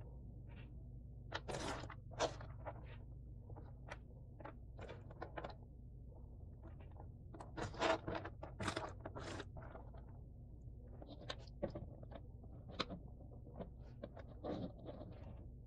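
Cardboard jigsaw puzzle pieces being handled on a table: irregular small clicks, taps and short scrapes, with a louder cluster about eight seconds in.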